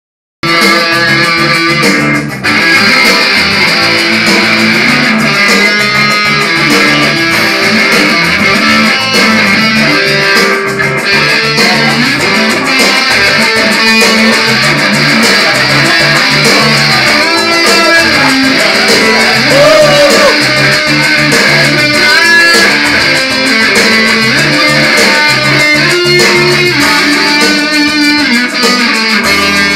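Electric guitar played loud through an amplifier, a continuous run of riffs and held notes with a few bent notes, starting about half a second in.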